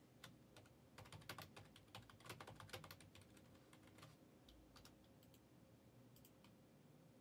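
Near silence with faint scattered clicks and taps, thickest between about one and three seconds in.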